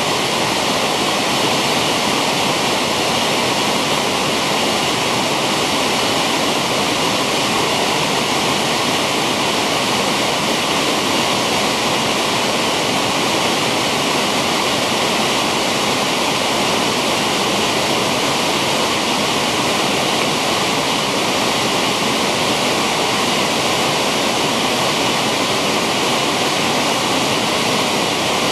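Small waterfall and the white-water rapids below it rushing over boulders, a loud, steady rush of water that never changes.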